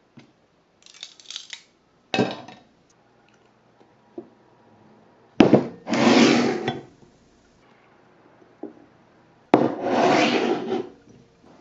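Kitchenware being handled on a wooden tabletop: four short scraping rubs, each starting with a light knock, the two longest and loudest about five and a half and nine and a half seconds in.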